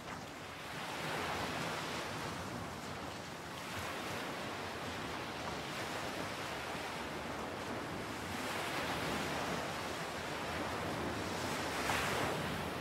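Ocean surf on a beach: a steady rush of breaking waves that swells a few times.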